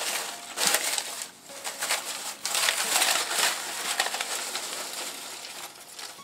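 Folded paper name slips rustling and crinkling as a hand digs through them.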